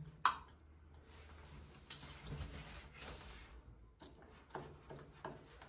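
Small screw being fitted and turned into a shower valve's handle trim by hand tools: a sharp click just after the start, then faint scraping and a few light ticks.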